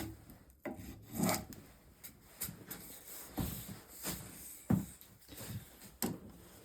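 Spokeshave cutting shavings from a spruce stool leg in a series of short scraping strokes, roughly one a second.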